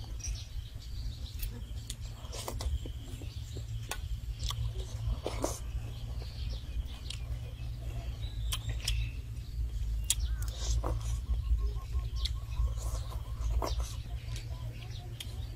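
Eating sounds: small scattered clicks and taps of a spoon and fingers picking flesh off a cooked fish head in a metal dish, over a steady low rumble, with a few short bird chirps in the background.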